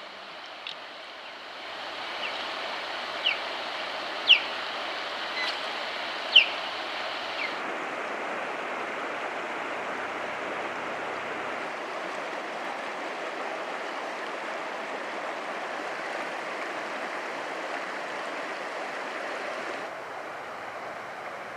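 River water running steadily, with about seven short, sharp bird chirps in the first eight seconds.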